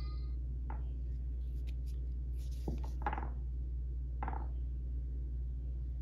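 Steady low hum, with a few short scrapes and a light knock from a rough stone being handled and turned over in the hand.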